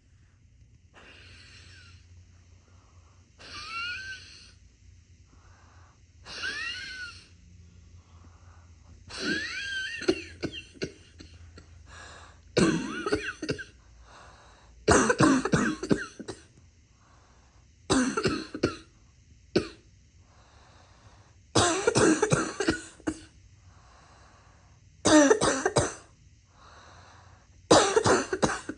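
A person coughing in repeated fits every two to three seconds. The first few are quieter and come with whistling, wheezy breaths. From about twelve seconds in they become loud, harsh clusters of coughs.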